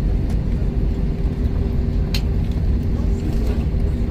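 Cabin noise of an Airbus A321 taxiing: a steady low rumble of the IAE V2533 engines at idle and the rolling gear, with a steady hum over it. A single sharp click about two seconds in.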